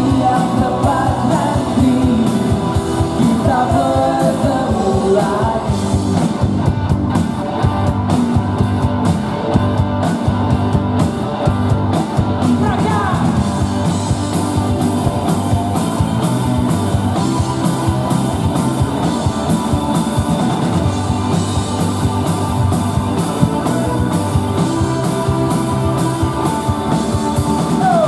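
A pop-rock band playing live, with electric guitars, bass, keyboard and a drum kit, and a man singing lead over it in parts.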